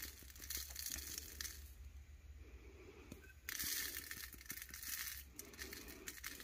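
Chunky glitter shaken from a flip-top shaker jar, pattering onto paper and a tumbler coated in wet epoxy as a fine crackly hiss. It comes in two shaking spells with a quieter break of about two seconds between them.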